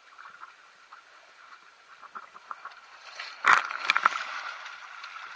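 Thin stream of water trickling down a rock chute, then a loud splash about three and a half seconds in as a person slides down the chute into the pool below. Churning water follows the splash.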